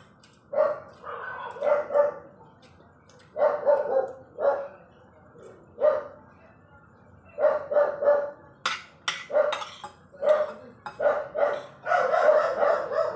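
A dog barking repeatedly in short runs of two or three barks, with a few sharp clicks a little past the middle.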